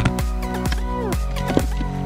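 Electronic background music with a steady beat of about two strokes a second, a heavy bass and synth notes that slide down in pitch.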